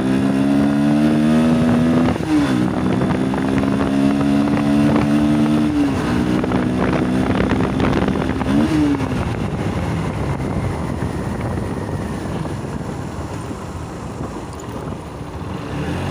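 Yamaha R15's single-cylinder engine with an aftermarket full-system exhaust, pulling up through the gears: three upshifts, each a quick drop in pitch that then climbs again. In the second half, wind rushing over the helmet-mounted phone drowns out the engine.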